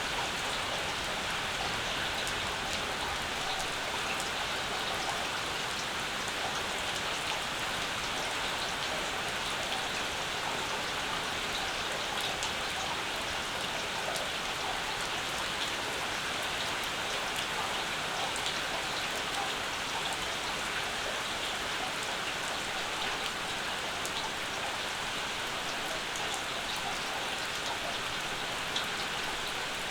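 Steady summer rain falling, an even hiss of rainfall with many small raindrop ticks scattered through it.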